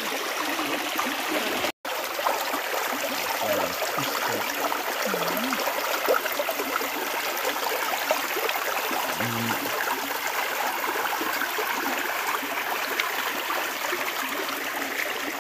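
Shallow rocky river water running and trickling over stones, a steady rushing sound, with a brief dropout in the audio about two seconds in.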